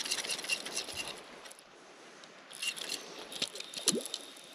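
Movement noise from an angler on a wet, grassy lake edge: irregular crackles and squelches, in two bursts, over the first second and again from about two and a half to four seconds in.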